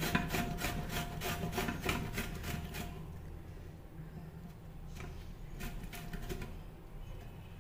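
Bottle gourd being grated by hand on the coarse side of a stainless steel box grater: quick repeated scraping strokes for about three seconds, then fainter, sparser strokes.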